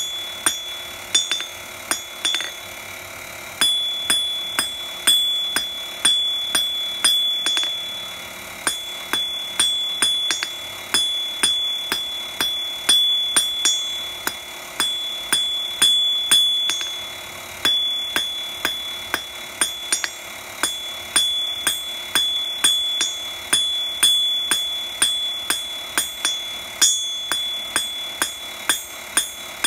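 Hand hammer striking a thin metal bar on an anvil in quick runs of blows, about two or three a second, each blow followed by the anvil's high ring. There is one short pause about two seconds in.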